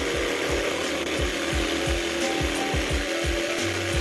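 Table saw running steadily as its blade cuts a curved groove into a pine blank turned by hand over it, with a low pulsing about three times a second under the motor hum.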